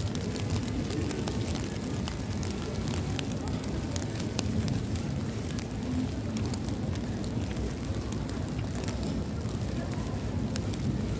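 Rain on a wet city street: a steady hiss full of small ticks from falling drops, over a low rumble.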